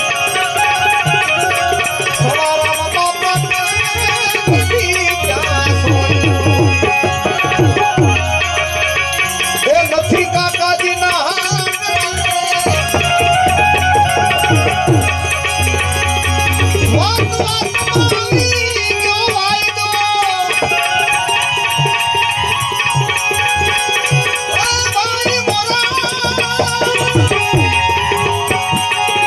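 Gujarati santvani bhajan music with tabla drumming, its low drum bending in pitch, over steady sustained instrumental tones.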